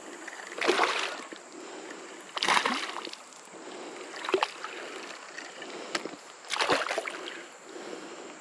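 Hooked fish splashing at the water's surface while being reeled in, in four short bursts about two seconds apart.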